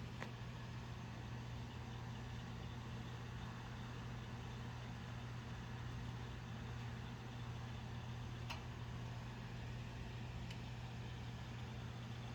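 Steady low hum of a car engine idling, with a couple of faint clicks in the second half.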